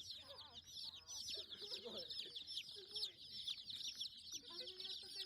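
Chickens calling: a continuous chorus of many short, high, falling cheeps, with a few lower clucks mixed in.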